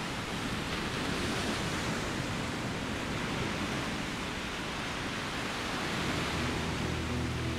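Small Baltic Sea waves breaking and washing up a stony beach as a steady surf wash. Soft music comes in near the end.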